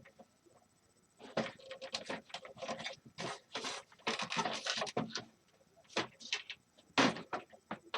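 Irregular clicks, knocks and rattles from the parts of a space heater being handled while it is taken apart, starting about a second in.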